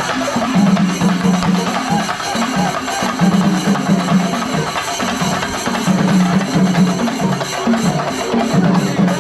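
Shinkari melam ensemble playing: a dense, fast rhythm of chenda drum strokes with clashing hand cymbals, and a repeated low tone that comes in blocks of about a second.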